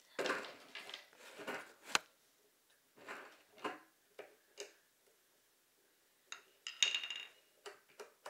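Skate tool socket turning a nut onto a skateboard truck axle: irregular metal clicks and scrapes, with one sharp click about two seconds in and a cluster of clicks near the end.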